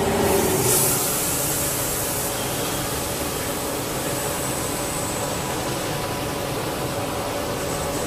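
Cable production machinery running: a steady mechanical whir with a faint thin high whine on top, a little louder in the first second.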